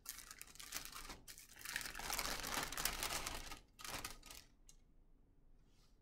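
Paper wrapper of a sterile glove pack being peeled open and unfolded: dense crisp crackling and rustling, loudest in the middle and dying away after about four and a half seconds.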